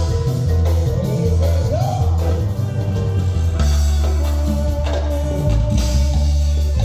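Band playing a chilena dance tune through loudspeakers, with heavy bass and guitar, and a singer's voice over the first two seconds or so.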